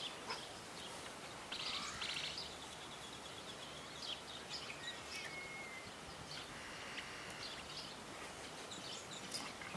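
Outdoor ambience: a steady background hiss with small birds chirping now and then, including a quick trill about a second and a half in and a short whistled note midway.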